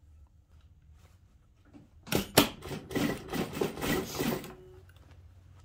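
Sewing machine running in one stretch of stitching, starting about two seconds in and stopping after about two and a half seconds, a rapid clatter of needle strokes.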